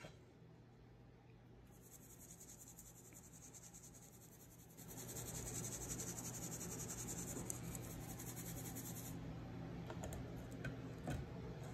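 Flour being shaken through a fine mesh sieve: a soft scratchy hiss over a low steady hum, with a few light clicks near the end.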